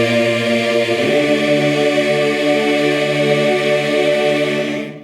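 A cappella choir holding the final chord of a hymn on the word "ring." The lowest voices move up about a second in, and the chord cuts off near the end.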